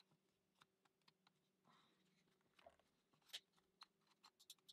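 Faint clicks, light taps and a brief scrape of small laser-cut plywood parts of a Ugears mechanical safe model being handled and fitted together, with a quick run of clicks near the end. A faint steady hum sits underneath.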